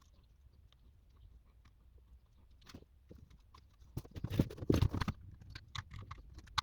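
Small clicks, taps and scrapes of a clock mechanism being fastened through a wood slice with a washer, in a cluster about four to five seconds in.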